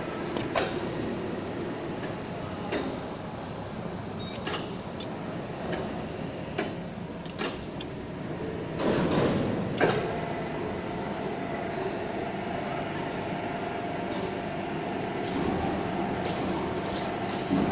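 Factory floor noise from welding positioners, with scattered sharp clicks, a louder swell about nine seconds in, and then a faint steady whine as the gear-driven positioner tables turn.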